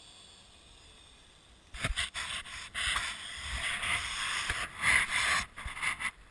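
Faint steady hiss, then about two seconds in loud rubbing and scraping with several knocks as the camera is handled and brushed by clothing close against its microphone.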